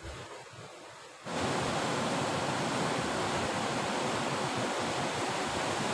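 Sea surf breaking and washing over a rocky shore: a steady rushing hiss that steps up suddenly to a louder level about a second in.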